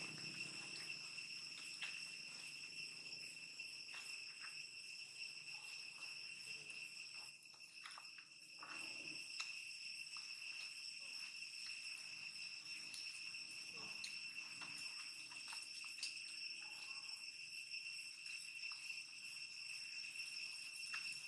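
Insects droning in a steady high even tone, with faint scattered wet clicks of an infant long-tailed macaque suckling at its mother's nipple.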